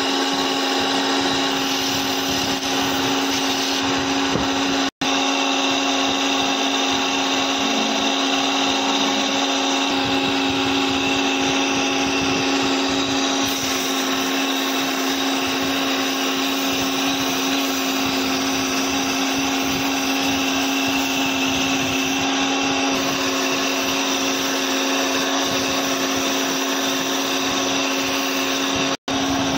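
Electric wood lathe running with a steady whine while a hand chisel cuts a spinning wooden spindle. The sound cuts out for an instant twice, about five seconds in and near the end.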